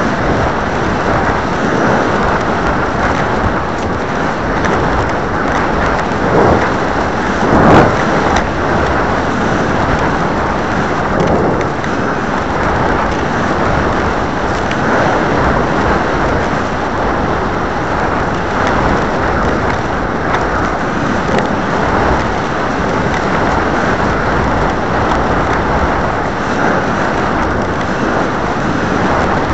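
Wind rushing over the onboard camera's microphone on a descending Apogee Aspire model rocket: a loud, steady rushing noise, with a brief stronger buffet about eight seconds in.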